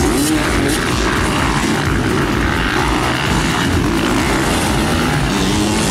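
Motocross bike engines running hard, their pitch rising and falling as the riders work the throttle.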